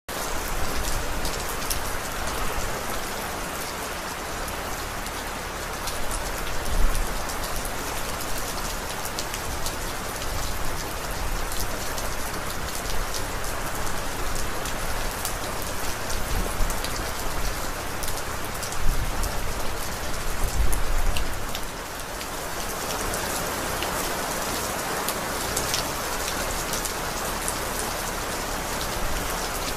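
Steady rain falling, with individual drops ticking sharply on a surface. A few low rumbles swell under it in the first two-thirds.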